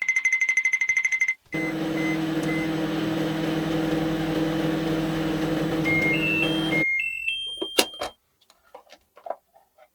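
Microwave oven sounds, likely from an electronic toy kitchen: a fast-pulsing high beep, then a steady hum for about five seconds with a few short beeps, ending in a run of rising beep tones and a couple of clicks.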